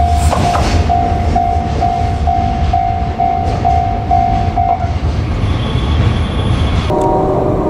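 Japanese level-crossing warning bell ringing in a steady rhythm of about two strokes a second over the low rumble of a freight train on the line. The bell cuts off about five seconds in. Near the end a new sustained tone of several steady pitches starts.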